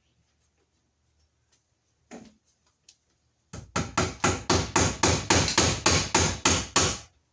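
A hammer striking quickly and evenly, about four blows a second, starting about halfway through after a single knock and stopping just before the end.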